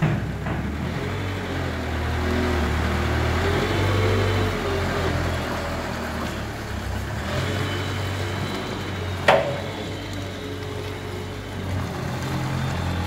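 Thaler KL 461/A mini loader's engine running steadily as the machine drives, its pitch shifting a little. About nine seconds in there is a single sharp metallic clank.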